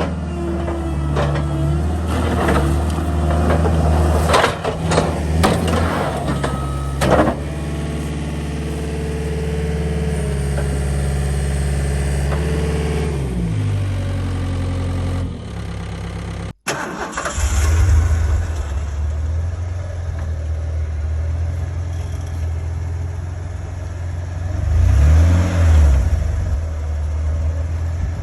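Cat 242B3 skid steer's diesel engine running, with knocks and clanks during the first several seconds. The engine slows down about halfway through, breaks off suddenly for a moment, then runs on and revs up and back down near the end.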